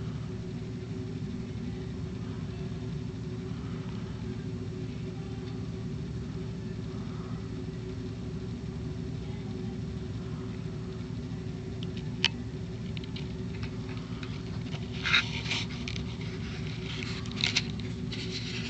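Steady low hum throughout, with a single sharp click a little past the middle and short bursts of crackly rustling and clicking near the end.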